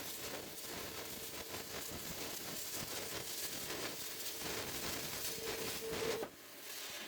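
CNC plasma cutter torch cutting metal: a crackling hiss with a steady hum underneath, which cuts off abruptly about six seconds in as the arc stops.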